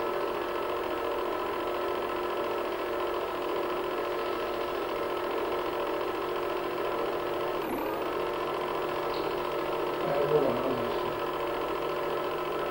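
Home-movie film projector running: a steady mechanical whirr with a constant hum of several fixed tones from its motor and film transport. A short louder sound with a wavering pitch comes about ten seconds in.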